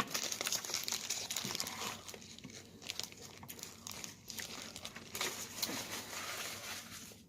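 Food wrapper crinkling in uneven stretches as it is handled.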